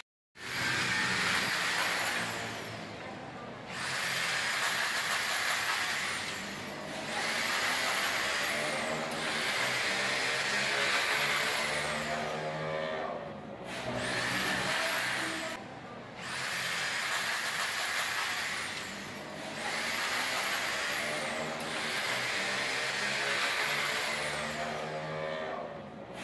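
Corded electric power drill run in about nine bursts of two to four seconds, each winding up with a rising whine and spinning down at the end, with a harsh grinding hiss while it bores overhead.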